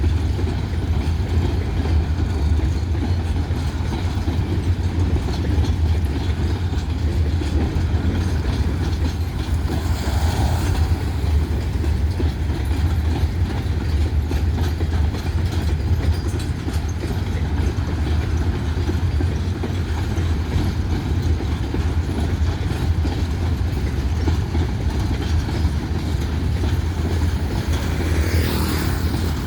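A long freight train of empty grain hopper cars rolling past, the wheels clacking over the rail joints above a steady low rumble. There are brief higher-pitched noises about ten seconds in and near the end.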